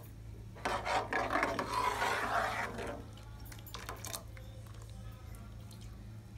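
Metal ladle scraping and stirring against the bottom and sides of a steel pot of simmering milk and rice: a rasping stir lasting about two seconds, then quieter, with a few light knocks about four seconds in.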